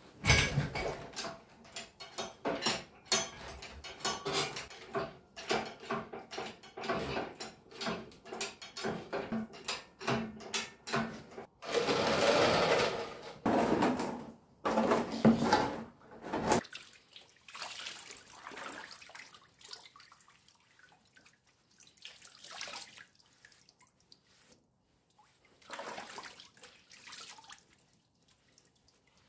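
Liquid splashing and dripping as a cast-iron cone pulley is lifted out of a pot of de-rusting solution and wiped with a sponge over a tub of water. Busy knocks and clatter of handling through the first half, then only sparse, quieter splashes.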